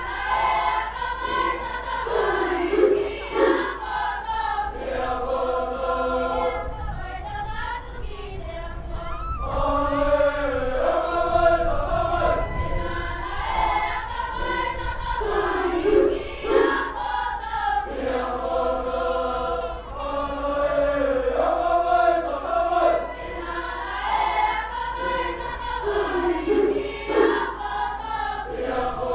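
Cook Islands imene tuki: a mixed choir of young women and men singing unaccompanied in several parts, the voices holding long chanted notes and sliding between them.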